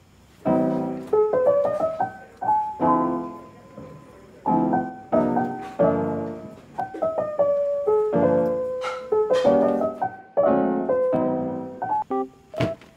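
Background piano music: chords struck at an uneven pace, each fading away, with a melody over them.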